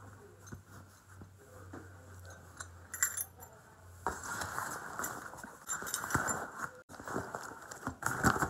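Clothes and a backpack being handled and packed: fabric rustling, faint at first with a small clink about three seconds in, then louder and busier from about four seconds on.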